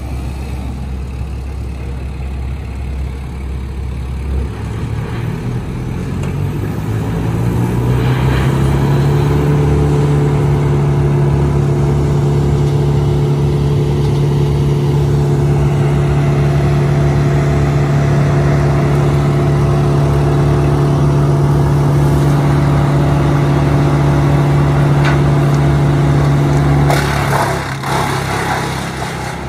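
Wood chipper's engine throttled up from a low run about six seconds in and held at a steady high speed, then dropping back near the end.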